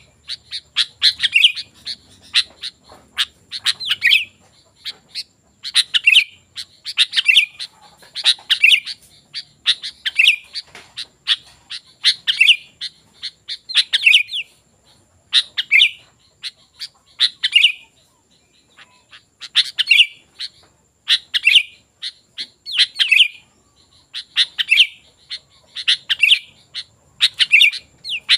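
Sooty-headed bulbul (kutilang) singing, repeating a short bubbly song phrase about every one and a half to two seconds, with a brief pause about two-thirds of the way through.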